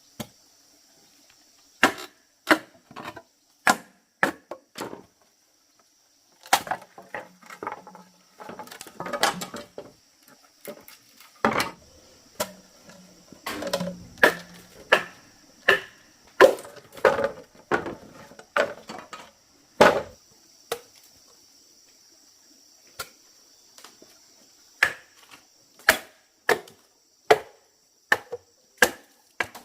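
Bamboo being chopped and split: irregular sharp strikes, some in quick runs of three or four, with splitting and crackling between them. A faint steady high-pitched hum runs underneath.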